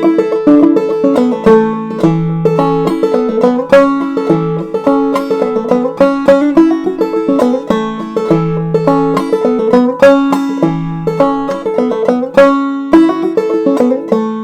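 Five-string banjo played clawhammer style: a fast old-time tune of quick picked melody notes with brushed strums and a ringing drone string.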